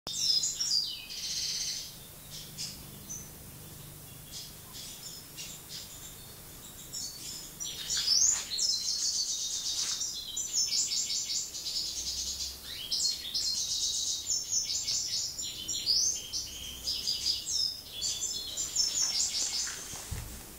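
European goldfinch of the parva subspecies, in breeding condition, singing its rapid high twittering song. A short burst comes at the start, then only scattered notes, and from about eight seconds in the song runs almost without a break.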